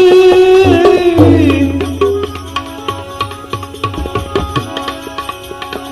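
Gujarati devotional bhajan: a sung note is held at the end of a line and slides down to a stop about a second in. Tabla strokes then carry an instrumental interlude over steady held accompaniment notes.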